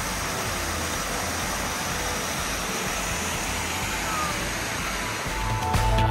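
Waterfall rushing, a steady roar of falling water, with a music track's low bass beat underneath that grows louder near the end.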